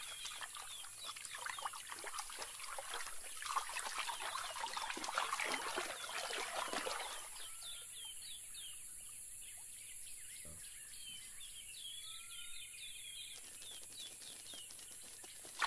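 Outdoor nature ambience of many birds calling and chirping in quick short notes. About halfway through, the bed changes to a different set of repeated chirping calls.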